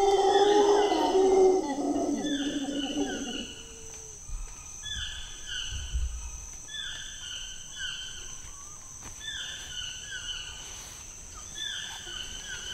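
Mantled howler monkey howling, a deep rough roar that dies away about three and a half seconds in. After that, a bird repeats short runs of descending high notes about every second over a steady high insect drone.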